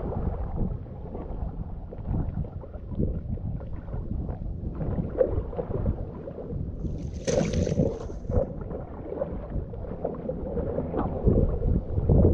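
Water splashing and sloshing close to the camera, with wind buffeting the microphone.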